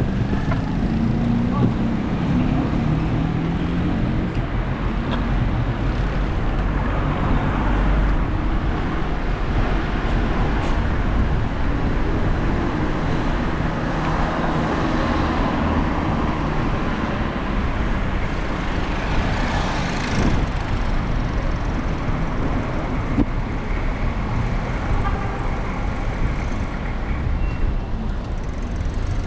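Steady street traffic noise, with one vehicle passing close about twenty seconds in.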